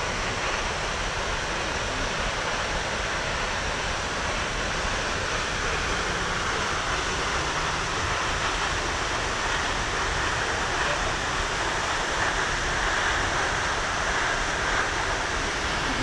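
Lower Düden Falls, a large waterfall dropping off a cliff into the sea: a steady, unbroken rush of falling water.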